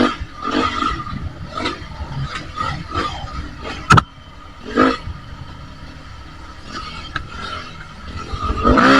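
Dirt bike engine riding through soft sand, the throttle opened and closed in short bursts so the revs rise and fall. There is a sharp knock about four seconds in, and a strong rev builds near the end.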